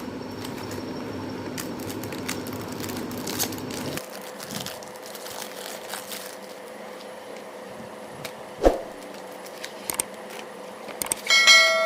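Plastic biscuit wrappers crinkling and crackling as the packs are handled and opened, with one sharp thump about two-thirds of the way through. A bell-like chime starts ringing near the end.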